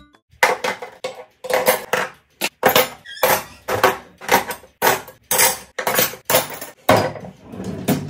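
Stainless steel cutlery clinking and clattering as forks, spoons and knives are dropped piece by piece into a plastic drawer organiser tray, a quick irregular run of sharp clicks. The drawer is pushed shut near the end.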